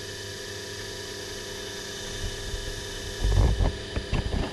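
Milling machine's spindle motor running with a steady hum while it spins an edge finder. A few low bumps and knocks come about three seconds in and again near the end.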